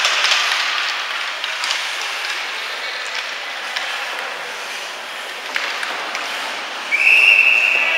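Ice hockey rink during play: a steady hiss of skates on the ice and arena noise, with scattered sharp clacks of sticks and puck. Near the end a referee's whistle blows one long steady blast.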